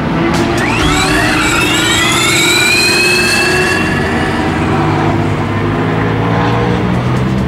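Formula Student race car accelerating on track. Its drive gives a rising whine that climbs until about four seconds in, then levels off and fades.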